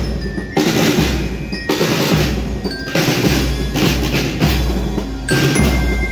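School marching band's drum line playing a marching cadence: snare drums rolling and rattling over a bass-drum beat about once a second, with cymbal crashes. Near the end a few high bell-lyre notes ring over the drums.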